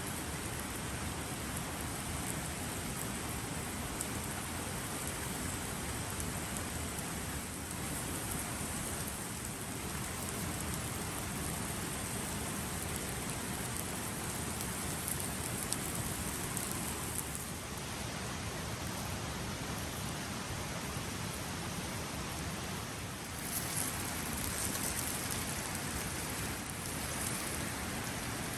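Steady rain falling: an even, continuous hiss of drops.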